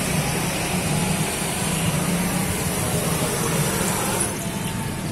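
Steady low engine hum of street traffic, with motor vehicles running close by.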